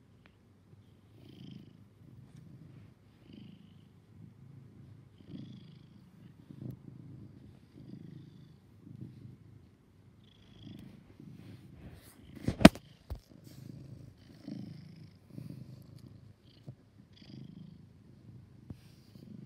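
Domestic tabby cat purring while being stroked, the purr swelling and fading with each breath about once a second. A sharp knock about twelve seconds in is the loudest sound.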